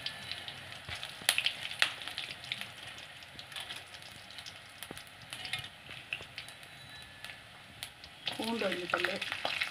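Dried round red chillies and coriander seeds frying in hot oil in a steel kadai: a low sizzle with scattered sharp pops, busiest in the first couple of seconds.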